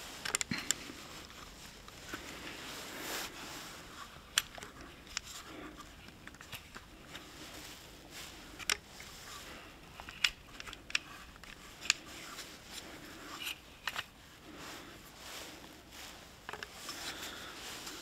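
Sharp clicks at irregular intervals as .68 calibre balls are pushed one at a time into the magazine of an Umarex HDX68 pump-action shotgun, over a low rustle of handling.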